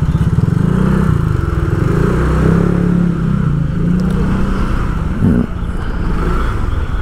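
Vehicle engine running while on the move, its pitch rising and falling with the throttle, with a brief rising sound about five seconds in.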